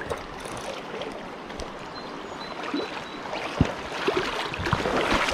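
Shallow river running over rocks: a steady rush of flowing water, with a few short low thumps from about three and a half seconds in.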